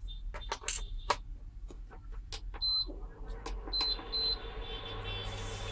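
Bajaj Majesty ICX7 induction cooktop: fingertip taps on its touch panel with short high beeps as buttons are pressed, three of them in the middle. From about three seconds in, the repaired cooktop starts heating with a steady hum, joined near the end by a faint hiss.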